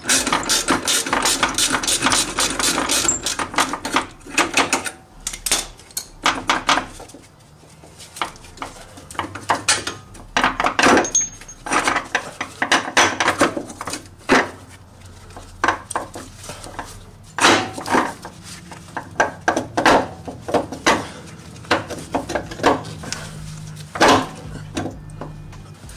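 Metal hand tools clinking and knocking against steel suspension parts during car disassembly: a quick run of clicks in the first few seconds, then irregular clanks and knocks.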